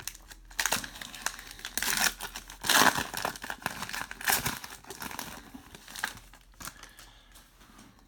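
Crinkling and rustling of trading-card pack packaging and cards being handled, in irregular bursts, loudest about three seconds in.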